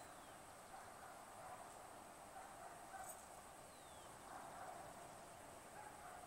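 Near silence: faint outdoor background noise with a thin, steady high whine.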